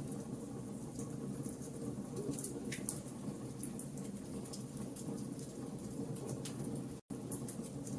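Wood fire burning in a fireplace: a steady low rumble of flames with irregular sharp crackles and pops from the burning logs. The sound cuts out for a split second about seven seconds in.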